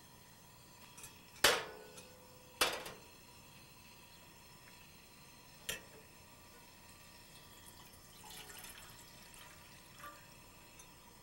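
Metal cookware clanking down twice onto a camp stove's steel grate, the first clank ringing briefly, then a lighter clink. Later, water is poured from a metal cup into a steel saucepan for a couple of seconds.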